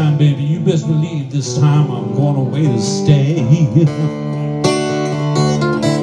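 Acoustic guitar playing a blues passage with bent notes that slide up and down in pitch, and a strong strum near the end.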